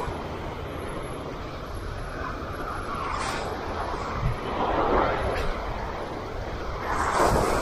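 Strong wind rumbling on the microphone, with a rushing noise that swells up about three times as gusts come through.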